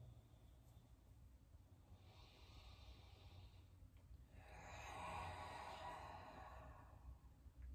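A person breathing slowly and deeply in a yoga pose, quietly: a faint inhale about two seconds in, then a longer, louder exhale from about four to seven seconds.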